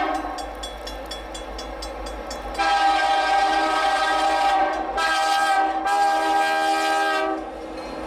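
Freight locomotive's multi-chime air horn blowing for a level crossing: one long blast begins about two and a half seconds in and a second follows almost at once after a short break near the middle, cutting off shortly before the end. In the pause before it a bell rings rapidly over the rumble of the train.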